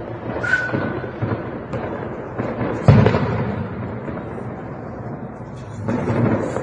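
Gunfire in a city: scattered sharp shots echoing between buildings over a constant rumble. The loudest and heaviest shot, with a low boom and a long echo, comes about three seconds in.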